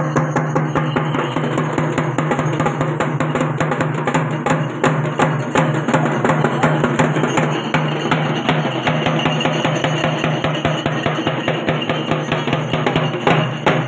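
Loud, fast, dense drumming from several drums, many strikes a second without a break, over a steady low hum.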